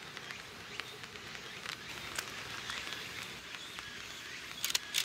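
Outdoor ambience with a steady insect buzz and scattered short bird chirps. A few sharp clicks come near the end.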